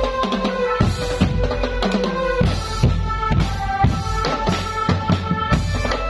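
Village drum band playing: marching snare, tom and bass drums beating a busy rhythm with cymbal crashes, under a held melody line that steps from note to note.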